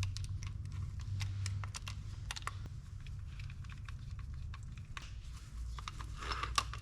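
Irregular light clicks and taps of small metal fishing reel parts being handled while the reel's handle is fitted back on. A denser, louder group of clicks comes near the end, over a steady low hum.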